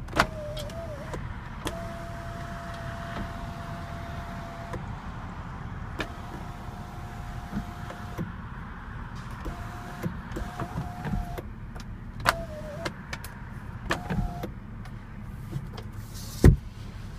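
2014 Lexus CT200h's power moonroof motor whining in a series of short runs as the glass opens and tilts, each run starting with a click of the overhead switch. A sharp thump near the end.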